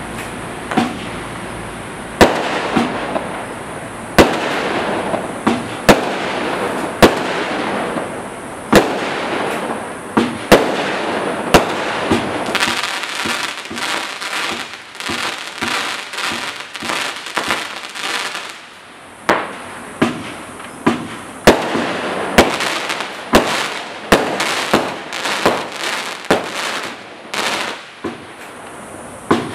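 Black Cat Thriller firework cake firing: a string of sharp shots and bursts about one to one and a half seconds apart, with hissing between them. In the middle comes a dense stretch of crackling from its crackle effects.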